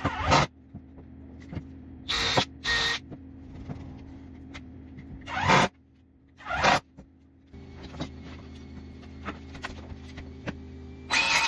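Woodworking tool noise: about six short, rasping bursts, each under half a second, spaced irregularly over a steady low hum.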